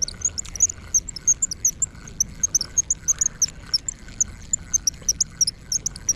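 A dense chorus of short, high chirps from small animals, several a second and unevenly spaced, over a faint low rumble.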